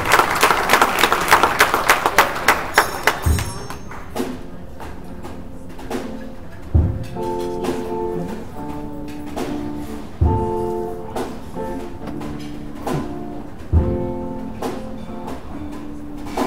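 Applause dies away over the first few seconds as a band starts a slow instrumental intro: held chords with a low bass-and-drum hit about every three and a half seconds.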